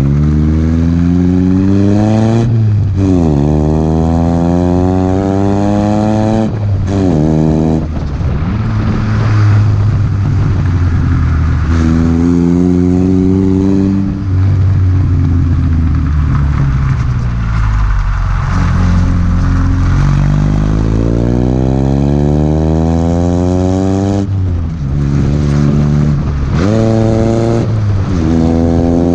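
A 1986 Nissan 720 pickup's engine, breathing through a Doug Thorley tri-tube header, 2.25-inch pipe and a Blue Streak long glasspack, accelerating through the gears more than once. Each time the pitch climbs and then drops sharply at an upshift.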